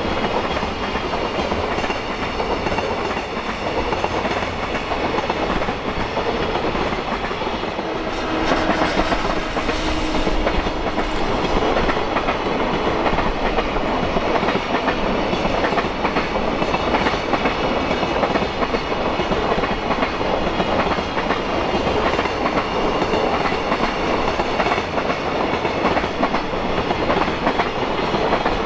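Freight train of container flatcars rolling past, the wheels clicking over the rail joints in a steady clickety-clack; it grows a little louder about eight seconds in.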